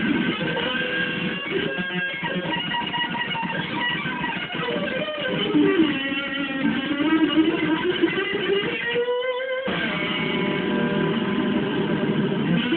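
Amplified electric guitar playing sustained strummed chords, with one note gliding down in pitch and back up through the middle, and a brief drop-out just after nine seconds.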